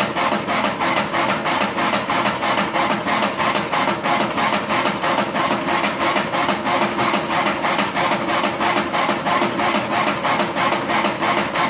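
Motor-driven drum of a home-built electric drum coffee roaster turning, uninsulated and running a little bit loud. It makes a steady mechanical hum with a fast, even ticking of about four to five beats a second.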